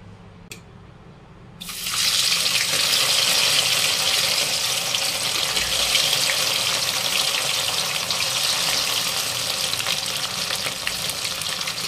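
Pieces of soya chap sizzling as they deep-fry in hot oil in a kadhai. The sizzling starts suddenly nearly two seconds in and then holds steady, with small spattering pops.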